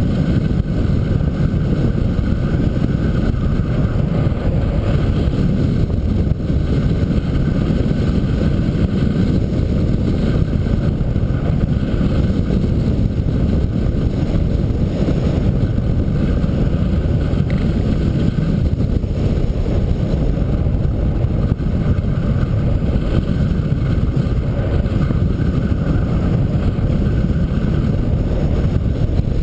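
Car driving steadily on a paved road, heard through a camera mounted on the car: an even, low rumble of engine, tyres and wind.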